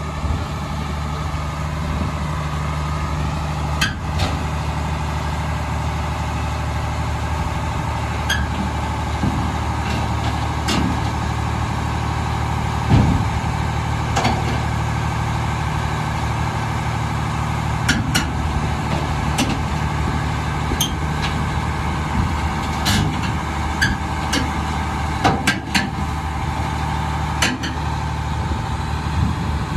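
A 50-ton LiuGong excavator's diesel engine running steadily. Sharp metallic clanks and knocks come through it about a dozen times, several in quick succession near the end.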